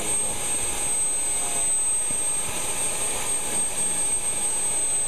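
JetCat model jet turbine in an RC jet running steadily while warming up: a steady rush of noise with a thin, high, steady whine.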